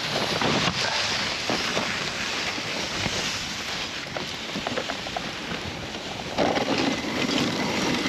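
Dog sled runners sliding and scraping over hard, uneven snow, giving a steady rough hiss with small clicks and knocks, mixed with wind on the microphone. The sound grows louder about six seconds in.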